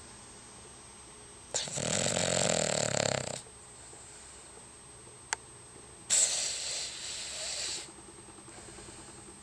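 A sleeping Cavalier King Charles Spaniel snoring: two snores, a loud rattling one about a second and a half in and a fainter, breathier one about six seconds in, with a single sharp click between them.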